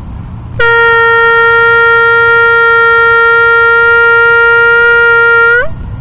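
Homemade air horn, a balloon membrane stretched over a medicine bottle and blown through a straw, sounding one long, loud, steady blast of about five seconds that starts about half a second in. Its pitch rises briefly just before it stops.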